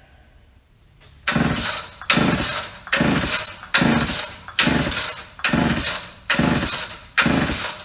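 Homelite Super XL Automatic two-stroke chainsaw being pull-started: eight quick yanks of the recoil starter cord, a little under one a second, the engine turning over each time without firing. It will not start because no fuel is being drawn up the fuel line to the carburetor.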